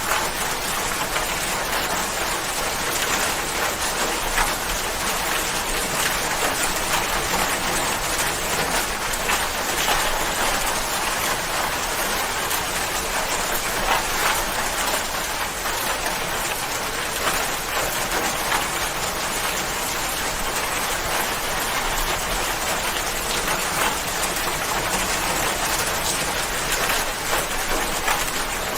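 Steady rain falling, an even hiss with many small drops pattering on a surface.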